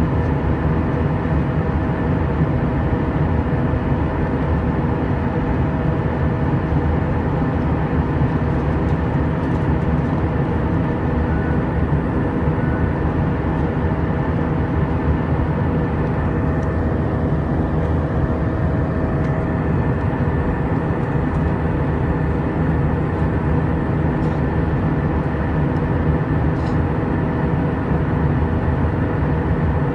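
Airbus A320 jet engines and airflow heard from inside the passenger cabin in flight: a steady rushing noise with a steady hum of several fixed tones over it.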